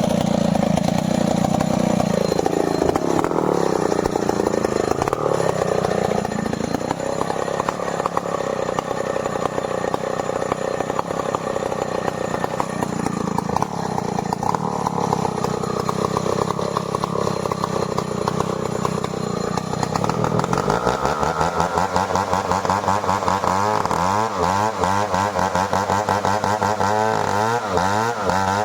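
Stihl 070 two-stroke chainsaw running while cutting merbau timber. Its pitch sags a couple of seconds in as it bogs under load, then recovers. In the last third the pitch wavers up and down rapidly.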